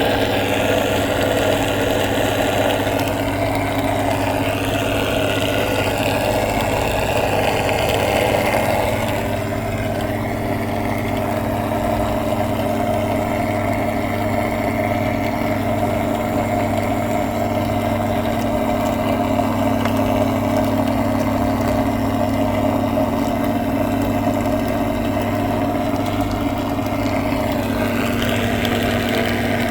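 Washing machine running with a steady electric motor hum and fixed droning tones; the higher sound shifts about nine seconds in and again near the end.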